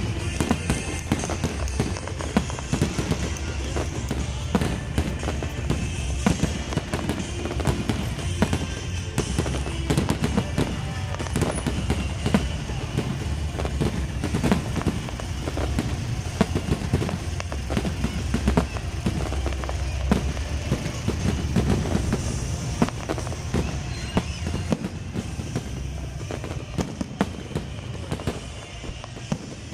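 Fireworks display going off in a dense, continuous barrage of cracks and bangs over a low rumble, with music playing underneath.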